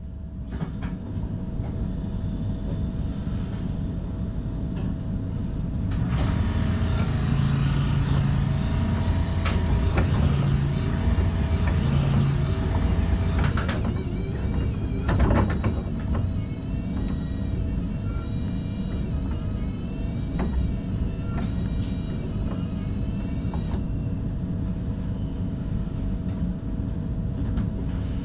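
Steady rumble and hum of an NS DDZ double-deck electric train, heard inside the driver's cab. A few short tones sound in the middle, and faint higher whines waver in the second half.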